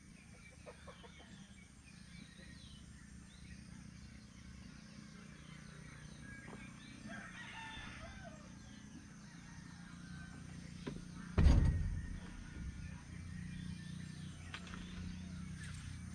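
Rooster crowing faintly over a low steady hum, with one loud thump about two-thirds of the way through.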